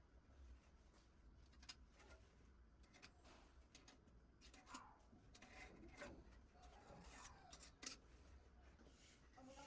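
Near silence: a low hum with scattered faint clicks and light scrapes.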